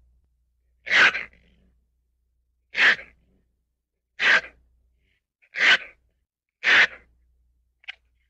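A ferret making a series of short, sharp, noisy puffs: five loud ones one to two seconds apart, then a fainter short one near the end.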